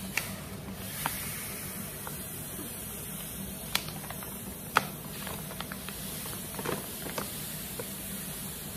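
Redmond Real Salt pouring from its bag into an empty plastic bucket: a steady hiss of grains that starts about a second in, with a few sharp clicks along the way.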